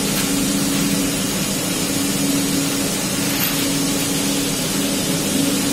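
A machine running steadily: a constant low hum under an even hiss, with no change in speed or load.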